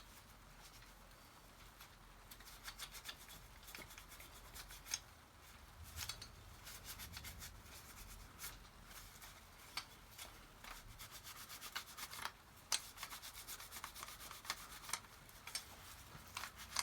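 Wire wool loaded with wax being rubbed over a rusty metal toolbox handle: a faint run of quick, scratchy strokes, busier in the second half.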